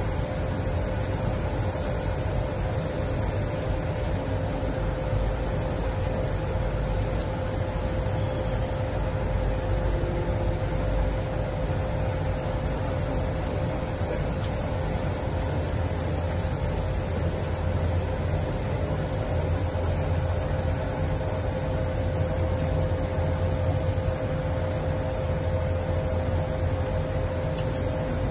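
Steady flight-deck noise of an Airbus A220 in flight on approach: an even rush of air over a low rumble, with a steady hum running through it.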